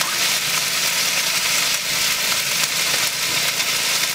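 Food frying in hot oil in a large black wok: a steady sizzle.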